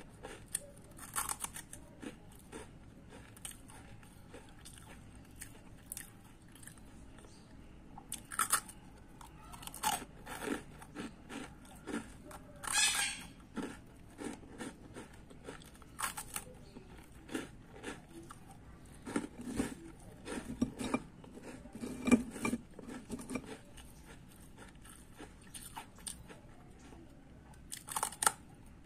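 A person biting and chewing dry, crisp toast biscuits (twice-baked rusks), making irregular crunches, with one longer crunch near the middle.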